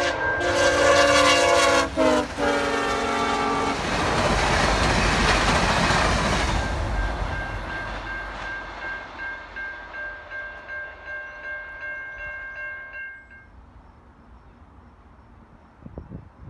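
A locomotive's multi-chime air horn sounding, its chord dropping in pitch about two seconds in as the locomotive passes, then stopping. The train then goes by with a loud rushing rumble that fades, with the clacking of wheels over the rail joints dying away.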